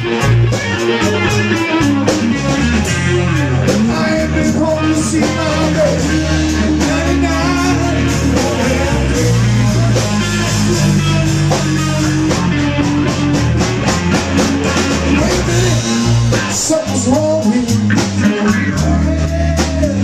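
Live band playing a slow blues: a Les Paul-style electric guitar over bass guitar and drum kit, with a bending lead line on top.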